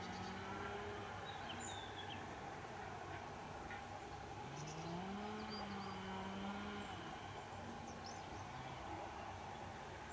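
Outdoor background with faint bird chirps and a distant engine drone, which rises in pitch about four seconds in and holds for a few seconds.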